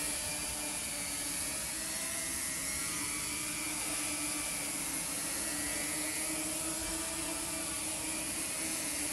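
Heat-resistant FireDrone prototype's propellers whirring steadily, a hum whose pitch wavers slightly, over the rushing noise of a large open fire.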